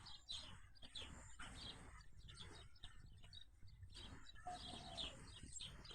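Faint chirping of small birds: many short chirps scattered throughout.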